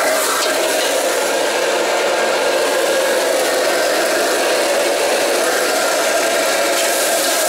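Gas wok burner running steadily under a wok of stir-frying noodles and vegetables, with the food sizzling and a steel ladle scraping and rattling against the wok as it tosses them.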